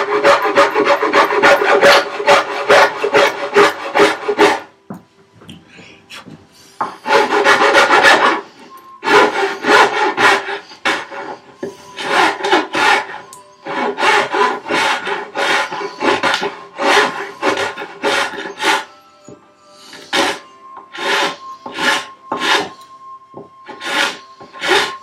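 Half-round bastard file scraping across wood in runs of quick strokes, with a couple of short pauses, taking the last bit of wood down to the line for the vise fit.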